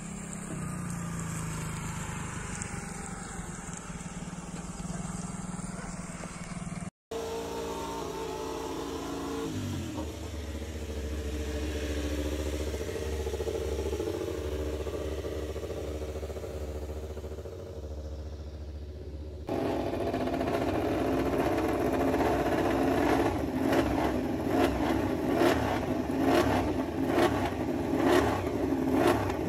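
MotoGP race-bike engines running, heard across several cuts. First a steady engine hum, then an engine note that falls and settles into a low, steady idle. From about two-thirds of the way in, a louder, rougher engine sound with rapid pulses and an unsteady level, as when a bike is revved in the pit lane.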